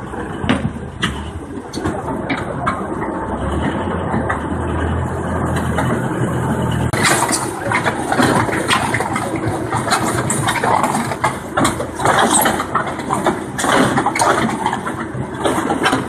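Concrete mixer-pump machine running with a steady low hum and scattered knocks and clatter. About seven seconds in, a louder rushing, clattering noise suddenly takes over.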